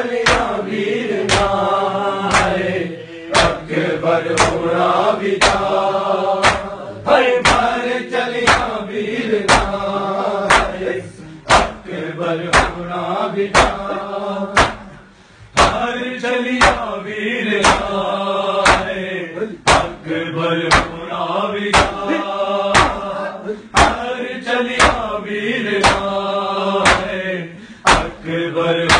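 A group of men chanting a noha (mourning lament) in unison, with their hands slapping their bare chests together in a steady beat of about one slap every second or so (matam).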